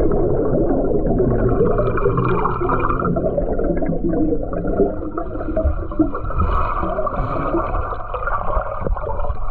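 Muffled rushing and gurgling of water heard through a submerged camera microphone, with small clicks and bubbles; the high end is cut off as it is underwater.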